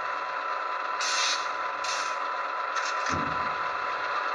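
HO-scale EMD SD7 model's onboard sound decoder playing a diesel idle, with the radiator fans switched on and not very loud. Short air hisses come about one, two and three seconds in.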